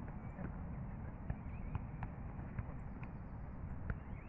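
Footballs being struck during a passing and heading drill: about seven sharp, irregular thuds of ball on foot and head over a steady background hiss.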